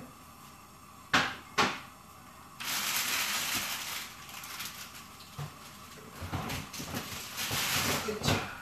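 Kitchen tidying: two sharp clatters of dishware about a second in, then several seconds of steady rushing noise broken by knocks and clinks of dishes and utensils being put away.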